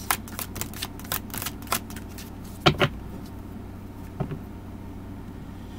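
Tarot cards being shuffled and handled: a quick run of sharp card snaps for about two seconds, then a couple of louder snaps and a single one a little later, over a low steady hum.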